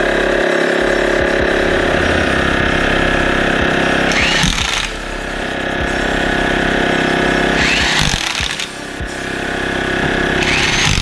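Portable air compressor running steadily to inflate a freshly plugged car tire, with a short swell of higher-pitched noise and a brief drop in level about every three and a half seconds.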